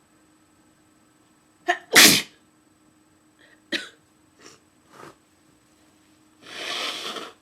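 A woman's forceful induced sneeze about two seconds in: a short sharp catch, then one loud burst. Three short, quieter sounds follow, then a longer noisy sound of about a second near the end.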